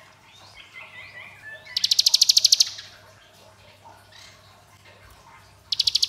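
Ciblek gunung (a prinia) singing its 'ngebren' song: a few soft twittering notes, then a loud, fast machine-gun-like rattling trill lasting about a second. A second rattle starts near the end.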